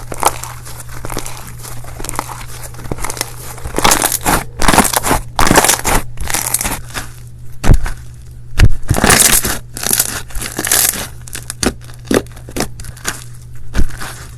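Slime being squeezed and worked by hand: irregular crackling and popping, with louder stretches about four and nine seconds in and a few single sharp pops. A steady low hum runs underneath.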